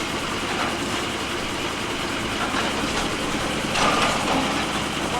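An engine idling steadily, with a few short metallic clanks over it, the loudest about four seconds in.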